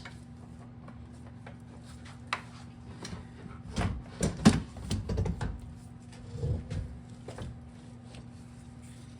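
Metal clunks and knocks as a Yamaha PW50's engine is worked loose from its frame: one sharp click, then a burst of knocks about four seconds in and a few more a couple of seconds later, over a steady low hum.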